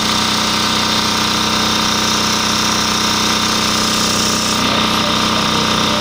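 Shark SG-7500S diesel generator running steadily at a constant speed. It starts again now that its corroded starter solenoid has been cleaned.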